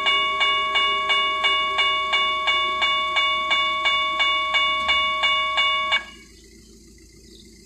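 Railway level-crossing warning bell ringing in a fast, even rhythm, about three strokes a second, then stopping abruptly about six seconds in.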